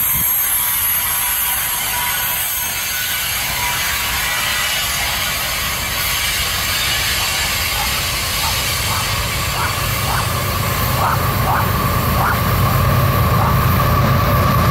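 Garbage-train freight cars rolling past with a steady metallic rattle and clatter of wheels on rail, a thin high squeal and short chirps riding over it. From about halfway, the low rumble of an oncoming Canadian Pacific diesel locomotive builds and grows louder.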